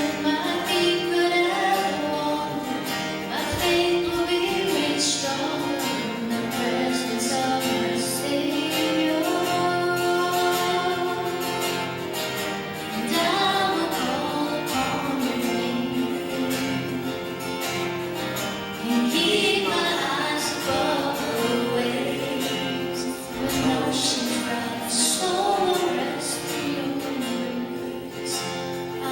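A song sung with guitar accompaniment: a sacred song performed during a church service.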